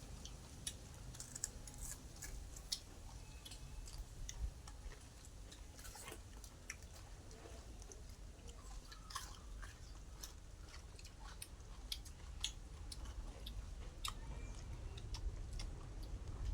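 A person chewing food close to the microphone, with irregular wet mouth clicks and small crunches throughout.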